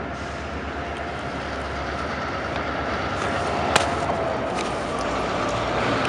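CN EMD GP9 switcher locomotive's 16-cylinder 567 two-stroke diesel engine running with a steady pulsing rumble that slowly grows louder as the locomotive moves. A single sharp metallic clank comes about two-thirds of the way through.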